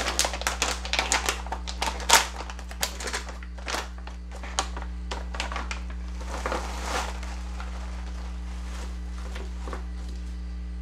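A foil chip bag crinkling and crackling as it is torn and opened, a dense run of crackles and clicks with one sharp snap about two seconds in, then a brief rustle of the bag around seven seconds in. A steady low hum runs underneath and is all that is left after that.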